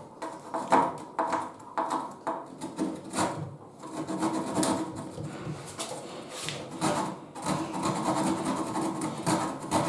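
Hand saw cutting a notch in a wooden cabinet panel, with quick back-and-forth strokes at about three a second. The cut is meant to stop just short, so a knife can finish it.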